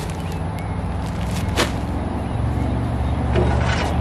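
Tractor engine idling steadily, with a sharp click about one and a half seconds in and the thump of a heavy bag of manure dropped onto grass near the end.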